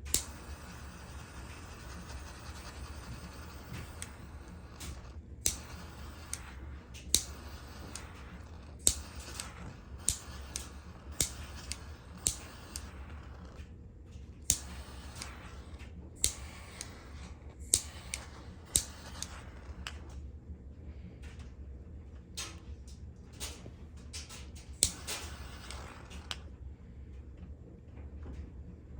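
A handheld lighter clicked again and again while heating heat-shrink tubing over a soldered wire joint: sharp clicks every one to two seconds over a steady low hum.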